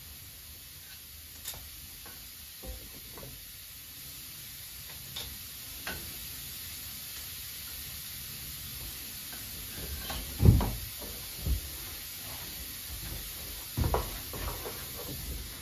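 Faint steady hiss of compressed air, with scattered light clicks and, from about ten seconds in, a few louder knocks as an air hose and its fitting are handled.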